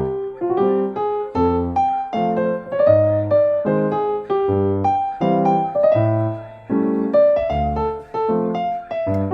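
Background music: a gentle piano tune, a melody over steady bass notes.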